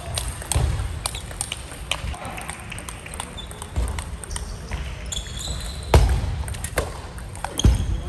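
Table tennis balls clicking again and again off tables and paddles from several tables in an echoing sports hall, with a few heavier thuds of feet on the floor and a brief shoe squeak about five seconds in.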